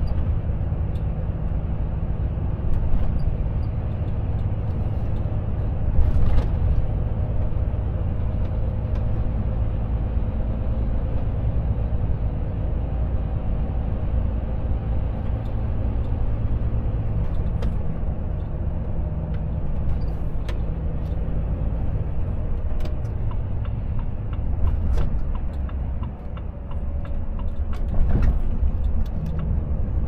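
Volvo FH truck's diesel engine running steadily under way, with continuous road and tyre rumble. A few short, faint clicks are scattered throughout.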